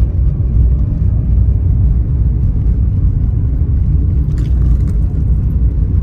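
Steady, loud low rumble of noise without a clear pitch, with a faint tick about four seconds in.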